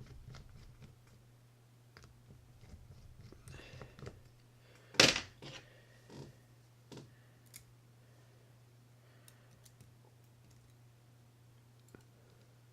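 Small clicks and taps of a screwdriver and loose metal parts while screws are taken out of a Shimano Citica baitcasting reel, with one louder sharp clack about five seconds in, over a faint steady hum.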